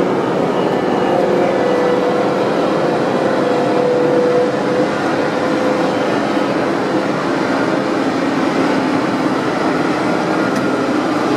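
Loud, steady machinery drone aboard a running container ship: a dense rushing noise with a few faint steady hums in it.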